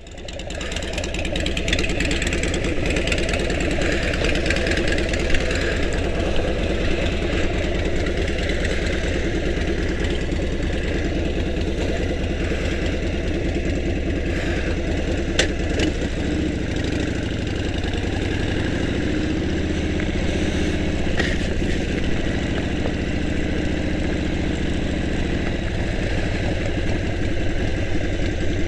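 Harley-Davidson V-twin motorcycle engine running steadily at idle, heard through a microphone inside the rider's helmet, its note shifting slightly for a while midway. A couple of sharp clicks stand out over it.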